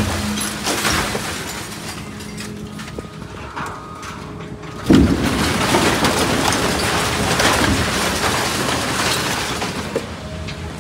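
Scrap metal shredder at work, with metal crashing and breaking over a steady machine hum and one heavy bang about five seconds in.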